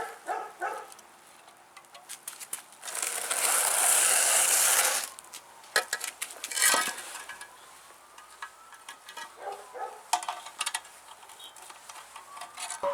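Metal parts and tools clinking and knocking, with a loud hissing scrape lasting about two seconds near the start.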